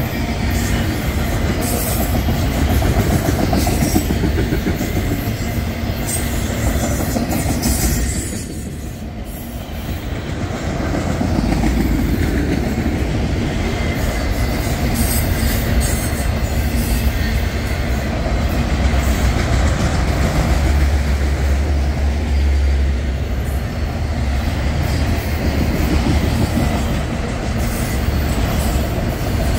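Freight train of autorack cars rolling past at close range, with a continuous rumble of wheels on the rails. It eases briefly about eight seconds in.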